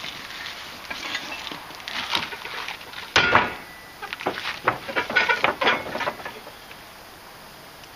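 Cardboard rustling as a steel crane post is drawn out of its box, then one heavy thud a little over three seconds in as the post's steel base is set down on the wooden truck bed. After that comes a run of crinkling and tearing as packing wrap is pulled off the post.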